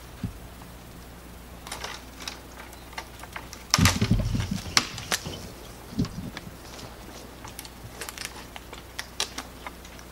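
Footsteps crunching through dry leaves and twigs, an irregular run of snaps and crackles, with a louder thump and rustle about four seconds in.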